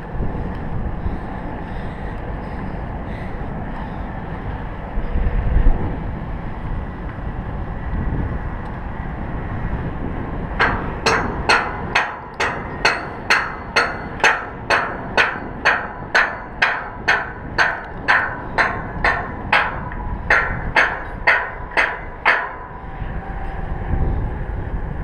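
Wind buffeting the microphone, then from about ten seconds in a steady series of hammer blows on steel tower parts, about two a second, each with a short metallic ring.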